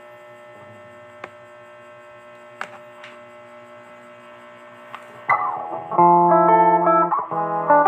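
Electric guitar amplifier humming with a few faint clicks from the Ibanez GIO HSS guitar, then about five seconds in the guitar starts playing: a note sliding down, followed by a run of loud sustained notes through the Line 6 Spider III 15 amp.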